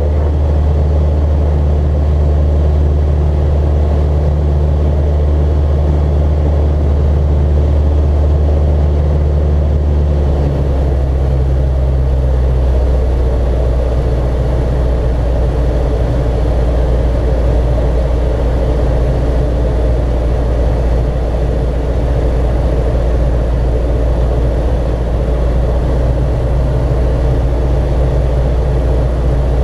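Cockpit sound of a Socata TB-9 Tampico's single four-cylinder piston engine and propeller droning steadily in flight. The engine note shifts about ten seconds in, as with a power change.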